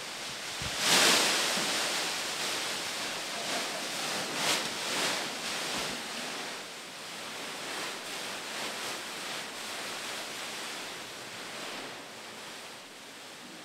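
Heaps of thin plastic bags rustling and crinkling as they are pushed along the floor and gathered up in armfuls. The rustling surges loudest about a second in and again around the middle, then grows softer toward the end.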